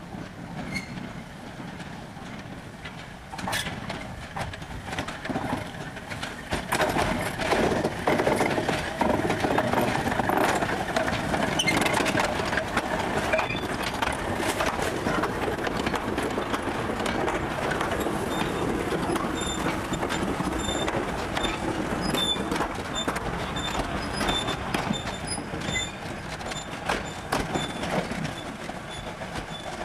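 1908 Orenstein & Koppel 0-4-0 narrow-gauge steam locomotive working past with its wooden coaches: the engine's exhaust and clanking, then the coaches' wheels rattling over the rail joints. The sound builds over the first several seconds, holds steady, and eases a little near the end.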